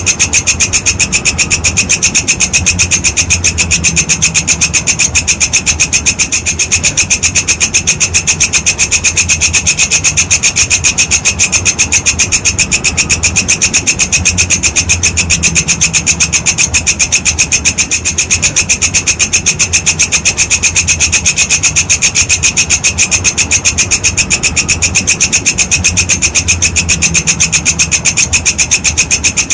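Walang kecek insect singing: a loud, unbroken, fast train of shrill rasping pulses, with a faint low hum underneath.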